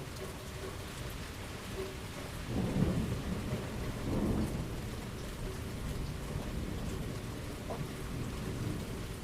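Steady rain falling, with a roll of thunder rumbling in about two and a half seconds in, swelling twice before fading back into the rain.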